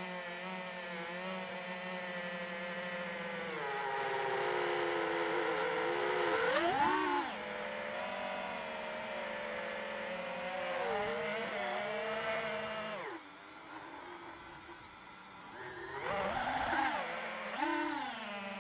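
FPV drone's brushless electric motors and propellers whirring, the pitch shifting with the throttle. A quick rise and fall in pitch comes about 7 seconds in. About two-thirds of the way through the motor sound drops away for about two seconds as the throttle is cut, then comes back with two sharp throttle-up rises near the end.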